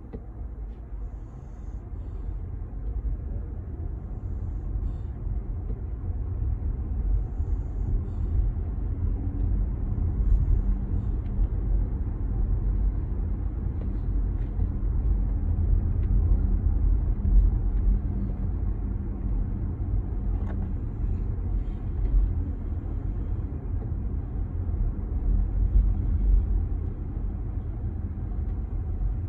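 Low rumble of a vehicle on the move, building over the first several seconds and then holding steady with small swells.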